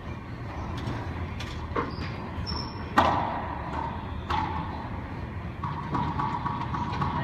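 Sharp knocks of a racquetball echoing in an enclosed court, a few scattered through, the loudest about three seconds in. Two short high sneaker squeaks on the hardwood floor come just before it.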